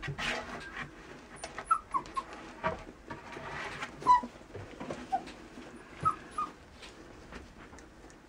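Border collie puppies giving a string of short, high squeaks and whimpers while they wrestle, with scuffling in the bedding.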